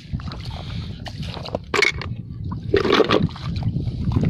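Seawater sloshing and splashing on a wet tidal flat, with two short louder splashes, one about a second and a half in and another around three seconds in, over a steady low rumble.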